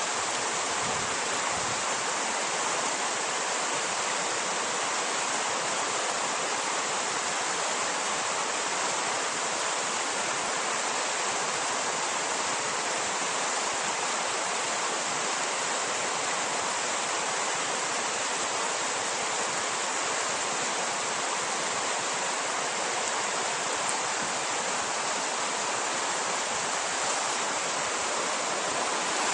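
Shallow, rocky river running over boulders and small rapids: a steady, even rush of water.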